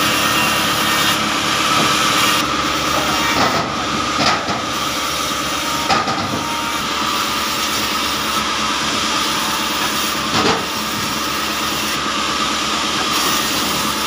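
Sawmill machinery running steadily, a continuous noisy drone with a constant hum, with a few sharp knocks of wood about four and six seconds in and again near ten and a half seconds.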